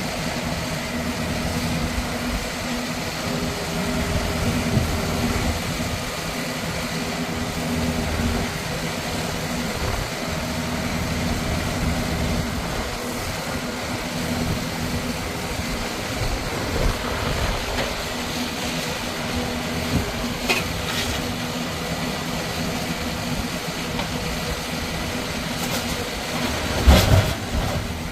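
Engine of an E-Z Log Baler car crusher running steadily, with a few metal clanks and one loud bang near the end.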